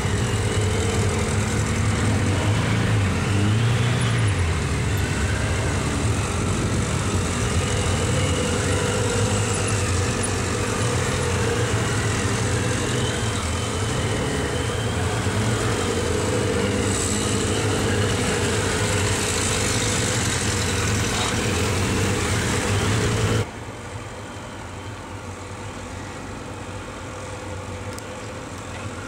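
Several large cruiser motorcycles riding at low speed through tight turns, their engines rising and falling in pitch as the riders work the throttle. About 23 seconds in, the sound drops suddenly to a quieter, more distant engine drone.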